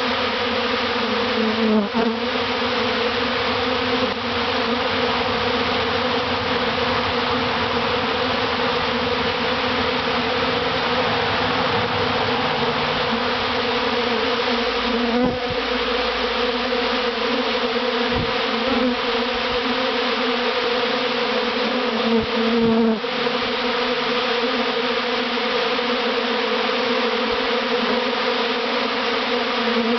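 A large swarm of honey bees buzzing as it moves into a hive box: a dense, steady hum, with a few brief louder swells.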